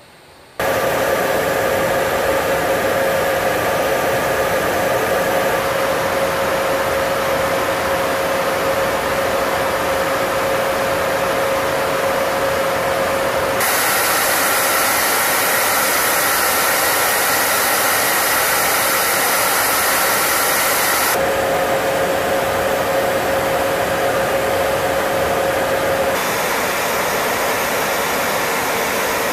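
Steady cabin noise inside a B-52H Stratofortress in flight: the constant rush of its eight TF33 turbofan engines and airflow, with a faint steady hum. The noise starts about half a second in, and its character shifts abruptly a few times, about 5, 13, 21 and 26 seconds in.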